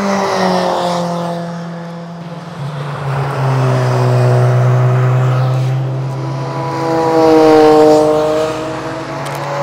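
Cars passing at speed along a race circuit straight, three in turn, each engine note swelling as it approaches and falling in pitch as it goes by.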